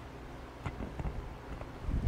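A few light knocks and clicks of metal engine parts and tools being handled on a workbench, with a heavier dull thump near the end, over a steady low hum.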